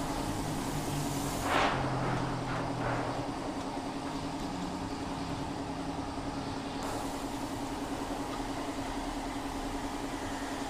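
Gas welding torch flame hissing steadily on the edge of a steel car fender panel, over a constant low hum, with a brief louder rush about one and a half seconds in.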